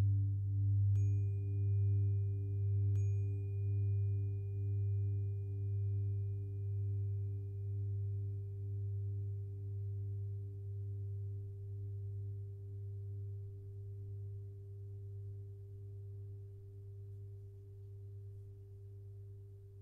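A 396 Hz tuning fork struck twice, about a second in and again two seconds later, each strike a small metallic click followed by one pure steady tone that rings on and slowly fades. Beneath it a louder low hum pulses about once a second and gradually dies away.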